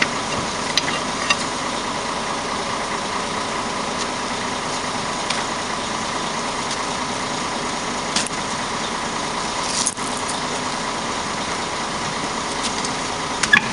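An engine idling steadily, with a few sharp knocks of a steel bar striking at a truck's wheel hub, the loudest near the end.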